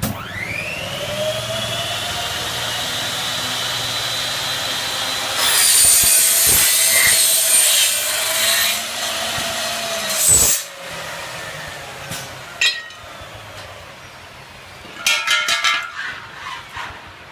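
305 mm aluminium cutting saw: the motor starts and spins up to a steady whine, then the blade cuts through aluminium for about five seconds, louder and noisier. The motor is then switched off and winds down, with a short burst of rattling knocks near the end.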